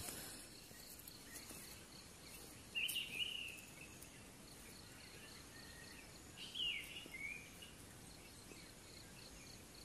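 Quiet outdoor dawn ambience: faint, steady high-pitched insect chirring, with two short bird calls, about three seconds in and again about six and a half seconds in.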